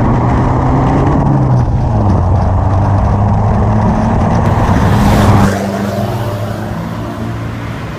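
Toyota Grandia van's turbo-diesel engine running through an aftermarket turboback exhaust, a loud, deep, steady drone. About five and a half seconds in it drops noticeably quieter as the van pulls away.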